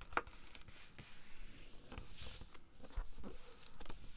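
Cardstock being handled and folded by hand: soft rustles and light taps, with a brief scraping hiss about two seconds in.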